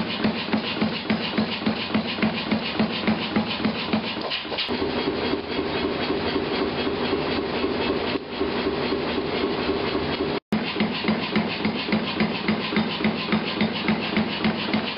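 Stainless steel being hammered at the forge in a quick, even rhythm of about four blows a second. For several seconds the blows give way to a steady rubbing, rasping sound before the hammering starts again after a brief break.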